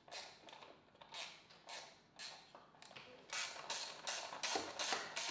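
Hand ratchet being swung back and forth, a short burst of ratchet clicks on each stroke. The strokes come about twice a second, then quicker, about three a second, in the last couple of seconds.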